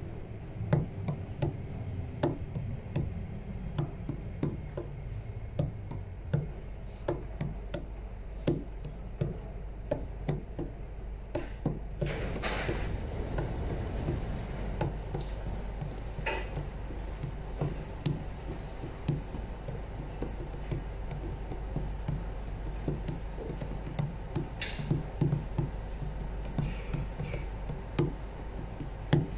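MRT train slowing to a stop at an underground platform, its low hum falling in pitch over the first few seconds, then a brief rush of noise about twelve seconds in as the train and platform screen doors open. Irregular sharp knocks and taps, about one a second, sound throughout over the steady station noise.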